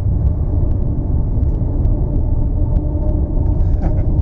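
Steady deep rumble as picked up by an action camera sealed in a waterproof housing inside the coracle, with a few faint clicks.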